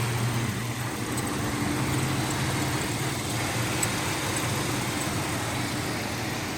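Truck engine idling steadily with no clicking, having cooled down from running hot.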